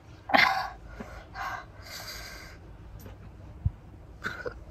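A woman's breathy coughs and snorts in short bursts, the loudest about half a second in, a reaction to the chili heat of pani puri.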